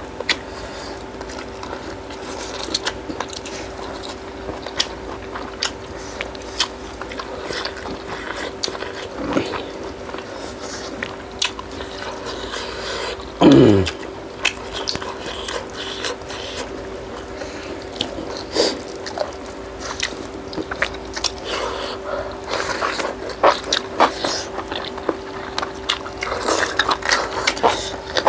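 Close-up eating sounds: wet chewing, mouth smacks and biting into cooked chicken leg pieces, with fingers scooping rice, as many small clicks over a steady low hum. About halfway through, a short loud throaty sound drops steeply in pitch.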